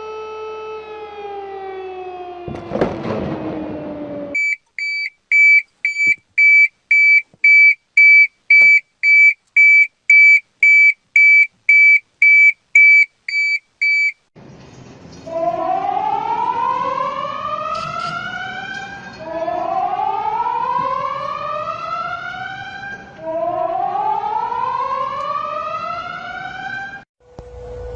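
A run of emergency alert alarm tones. It opens with a falling, discordant multi-tone drone and a burst of hiss. Then comes a high beep pulsing about twice a second for about ten seconds. It ends with three rising, whooping siren glides of about four seconds each.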